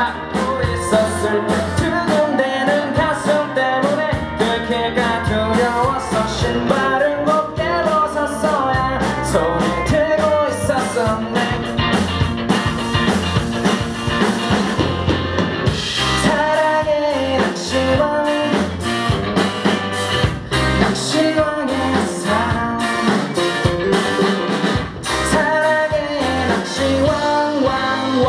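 Live rock band playing: electric guitars, electric bass and a drum kit, with singing over them.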